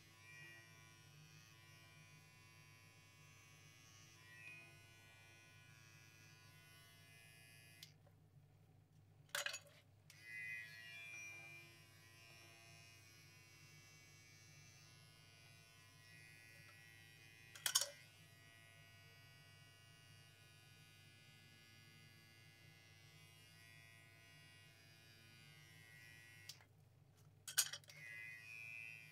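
Small electric hair trimmer running with a steady, quiet buzz as it clips a Persian cat's fur, with three sharp clicks along the way.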